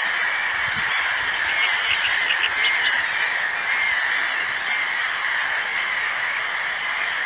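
A steady din of distant animal calls from around the lake, with a few brief higher chirps about two seconds in.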